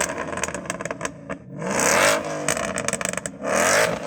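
Ford Mustang's V8 revved hard while stationary, in repeated blips that climb and fall back, with no rev limiter cutting in.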